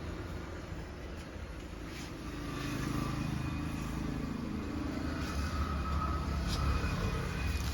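Steady low rumble of road traffic, growing louder about two and a half seconds in.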